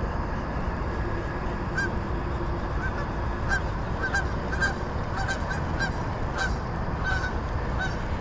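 A flock of geese honking in flight: a dozen or so short honks at irregular intervals, over a steady low background rumble.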